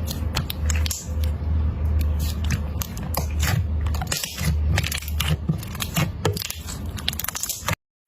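Crunchy slime being squeezed and poked by hand, giving a dense run of irregular crackles and pops over dull low handling thumps. It cuts off suddenly near the end.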